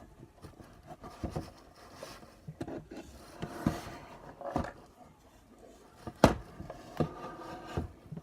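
Irregular handling noises close to the microphone: knocks and clicks with rubbing and scraping in between, the sharpest knock about six seconds in.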